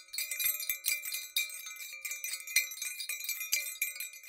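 Small bells jingling and chiming, many quick high strikes ringing over one another without a break.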